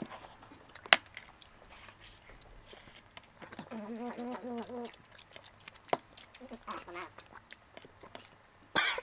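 Eating sounds of a man chewing T-bone steak off the bone with his hands: scattered wet mouth clicks and smacks, with a wavering hummed voice sound about a second long near the middle and a shorter, fainter one a little later.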